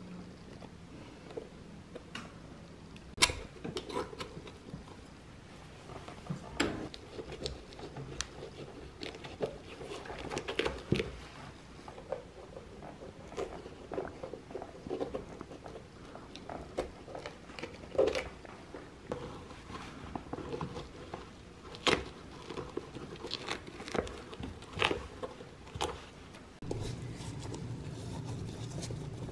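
Hand shoe-repair work on a welted shoe's bottom, heard as irregular sharp clicks, crunching and scraping: needle-nose pliers tugging old stitching from the welt at first, then a knife digging out old cork filler. Near the end it changes to a steadier brushing as cement is spread on the insole.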